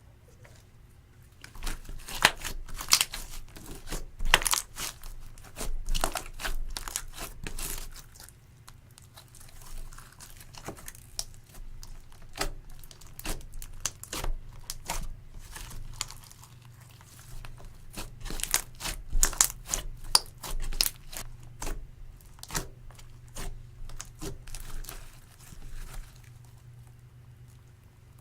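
Clear slime mixed with eyeshadow and glitter being squeezed, stretched and folded by hand. It makes an irregular run of sharp clicks and pops that starts a second or two in, thins out in the middle, and dies away a couple of seconds before the end.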